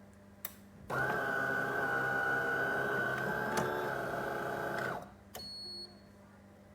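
De'Longhi Dinamica espresso machine: a click, then a steady, high-pitched motor run of about four seconds that stops sharply, then a brief, quieter second run.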